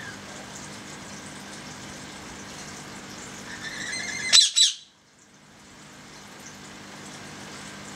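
A bird's call rising to two loud, short squawks about halfway through, over a steady background hum. Right after the squawks the background drops out abruptly and slowly fades back in.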